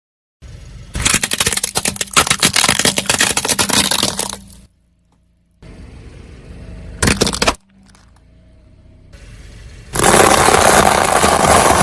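Objects crunching and cracking as a car tyre crushes them, in three bursts: a long crackling run in the first few seconds, a short one about seven seconds in, and a dense one near the end.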